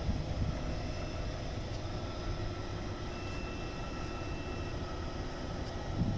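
Central air-conditioning unit running with a steady low mechanical hum, a faint thin high whine coming in about three seconds in and fading out after a second and a half.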